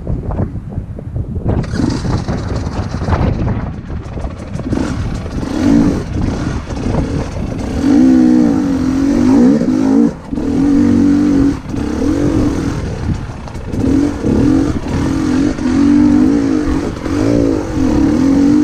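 Dirt bike engine revving up and down with the throttle while riding over rough trail, the pitch rising and falling repeatedly with a brief drop about ten seconds in.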